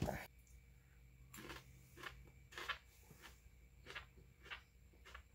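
A person chewing a bite of raw aji fantasy pepper: faint crunchy chewing, one chew about every half second, after a sharp click at the very start.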